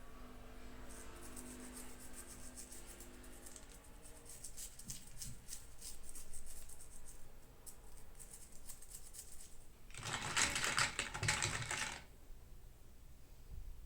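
Hands unboxing small plastic toys: a run of light plastic clicks and taps, then about two seconds of dense crinkling of packaging, the loudest part, near the end.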